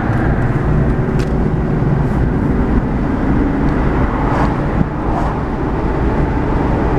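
Steady road noise inside a moving 2001 Ford Explorer with its windows down: engine, tyre and wind rumble. Under it the driver hears the whirring noise he is trying to track down, though he doubts it comes through on the recording.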